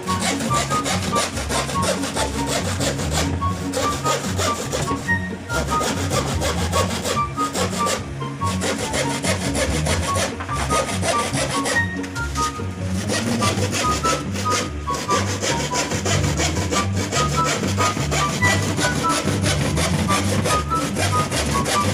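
Hand saw cutting through a thin plywood sheet in quick, steady back-and-forth strokes, with a few short pauses between runs of strokes.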